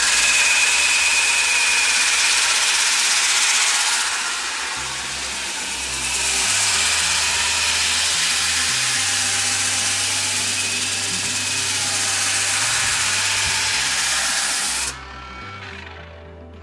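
Einhell CE-CP 18/180 Li E cordless polisher-sander running a 60-grit disc at about 800 rpm and sanding the ridged surface off a wooden plank. The sanding is loud, eases for a couple of seconds around four seconds in, then resumes and cuts off about fifteen seconds in.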